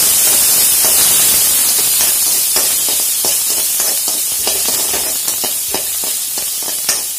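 Sliced green chillies, ginger and garlic sizzling in hot oil in an aluminium pan, with a steel spoon scraping and tapping the pan a few times a second as they are stirred. The sizzle eases slightly toward the end.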